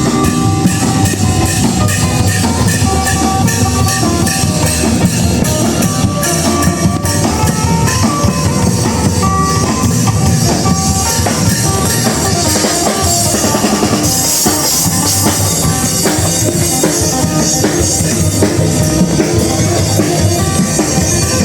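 Loud music: a drum kit and bass drum keep a dense beat under a melody of held notes.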